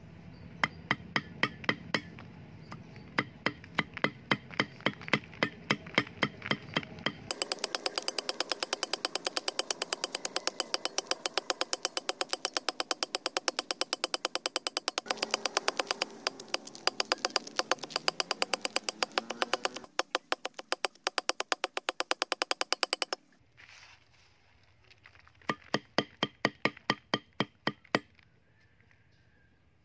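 Forged steel axe blade chopping leafy greens against a wooden block: rapid, even knocks of the blade striking the wood. About three chops a second at first, then a long faster run of about five a second, which stops a little past the two-thirds mark before a short final run of chops.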